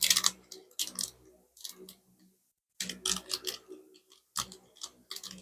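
Trading card box and pack packaging being handled and opened by hand: short, irregular bursts of crinkling and crackling, about one a second.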